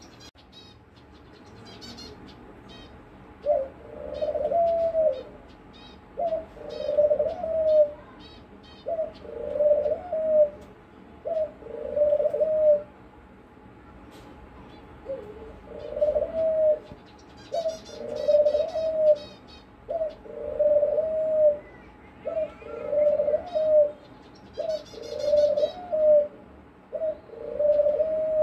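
Ringneck dove cooing over and over: about a dozen low coos, each a second or so long, beginning a few seconds in. Small birds chirp faintly in the background.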